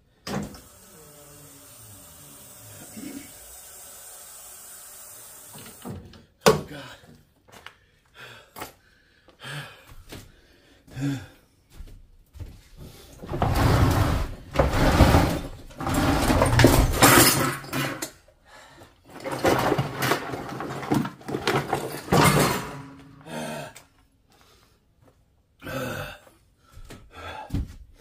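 Heavy scrap metal being shifted: repeated clunks and knocks, with two long, loud spells of metal scraping and clattering in the middle, as the weighty load of sealed-unit compressors is dragged and worked into place.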